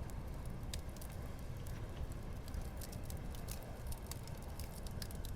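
Wood fire crackling, with scattered small pops over a steady low rumble.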